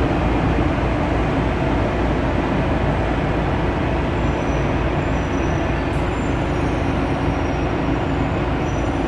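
Metro train running, heard from inside the carriage: a steady rumble and hum of the car in motion.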